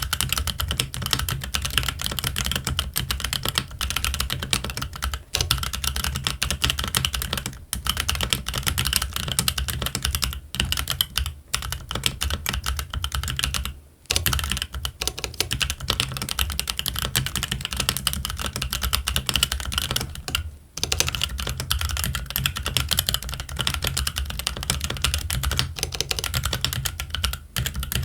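Fast, continuous typing on a Keychron Q1 aluminium-cased mechanical keyboard with Gazzew Boba U4T tactile switches and ABS Cherry-profile keycaps: a dense run of keystroke clicks. There are brief pauses about 14 and 20 seconds in.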